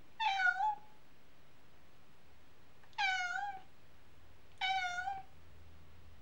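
A cat meowing: three short, high meows, each about half a second long, spaced a few seconds apart.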